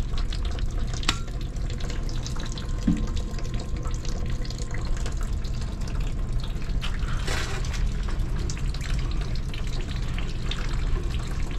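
Steady low rushing background noise of running equipment or water, with a few faint clicks and scrapes from a Ridgid tubing cutter being worked around a copper pipe.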